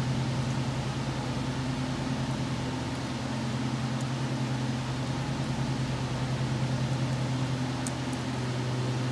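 Steady background machine hum, a low drone with a hiss over it, like a fan or motor running. It stays level throughout, with a few faint light clicks from hand work on the engine, once about four seconds in and twice near the end.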